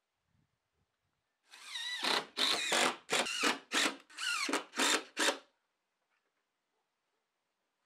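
Cordless drill-driver running in a quick series of about seven short trigger bursts, its motor whine rising and falling in pitch, as it drives screws into a gypsum-fibre (Fermacell) wall board. The bursts start about a second and a half in and stop about four seconds later.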